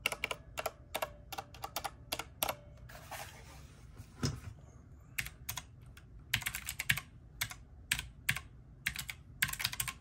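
Typing on a mechanical keyboard: first a brown-switch keyboard, then, after a short pause about halfway through, a 61-key Fiodio F-SG61 keyboard with blue clicky switches, with quick runs of sharp key clicks.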